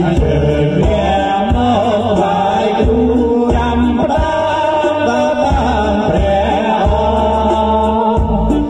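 Loud music: a heavy, steady bass beat about twice a second under a wavering sung melody.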